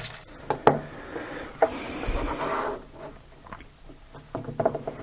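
Handling noise from a small plastic housing with a circuit board inside being moved about and set on a tabletop. A couple of light clicks come early, then a rubbing scrape of about a second in the middle, then a few faint ticks.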